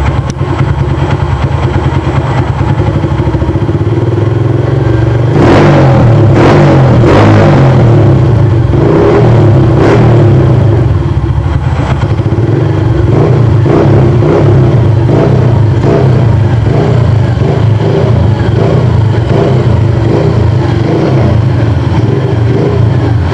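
Honda CG Titan motorcycle's single-cylinder engine running through a Roncar Aluminium-RS aftermarket exhaust: idling steadily, then revved in a run of quick throttle blips from about five seconds in, the pitch rising and falling again and again.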